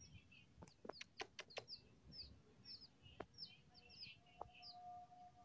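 Two baby chicks peeping: faint, short, high-pitched peeps that slide downward, repeated two or three times a second. A few sharp clicks come about a second in.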